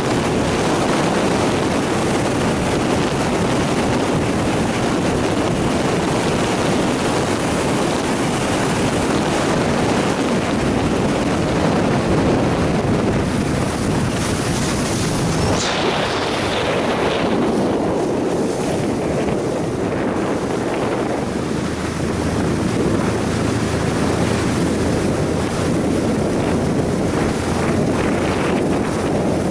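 Wind buffeting the microphone of a camera riding low on a moving boat, with water rushing and splashing past the hull in a loud, steady rush. About halfway through, the sound changes abruptly and much of the hiss drops away. A faint low hum comes in near the end.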